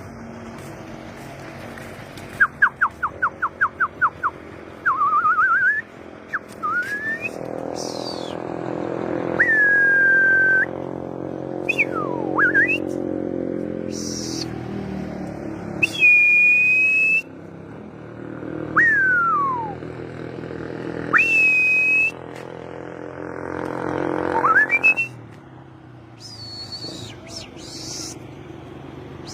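A person whistling loud, separate calls: a fast trill of about a dozen short notes, then rising and falling slides and several held high notes with a hooked start. A low steady engine-like drone swells underneath twice.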